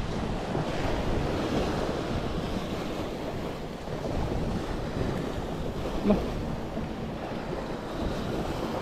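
Choppy water washing onto the bank, with wind buffeting the microphone. A short knock sounds about six seconds in.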